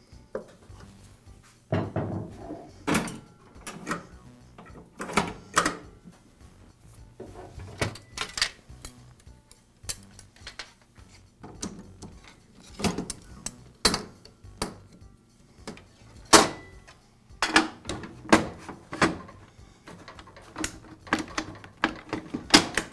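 Irregular clicks, clacks and knocks of metal and plastic parts being fitted back onto a table saw as the blade guard and rip fence are reinstalled. A sharper knock stands out about sixteen seconds in.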